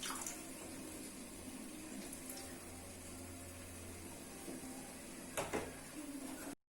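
Water sounds with a steady hiss, broken by a few sharp knocks, about three quarters of the way through, then cutting off suddenly just before the end.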